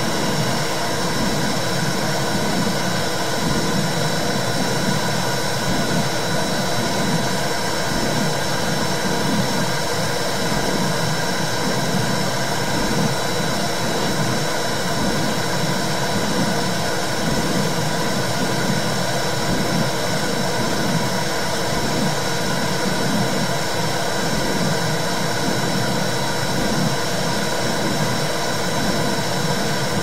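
Womb sound for calming babies: a steady whooshing rumble with a slow, even pulse running through its low end, like blood flow and heartbeat heard inside the uterus.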